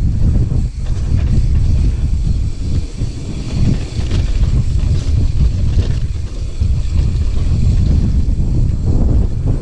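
Loud wind buffeting the microphone of a mountain biker riding down a trail, a steady low rumble with a lighter hiss and faint rattle of tyres on the dirt.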